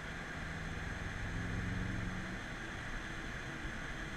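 BMW F10 M5's twin-turbo V8 heard from inside the cabin, pulling with its note rising for the first two seconds or so. The engine note then fades, leaving steady tyre and wind noise.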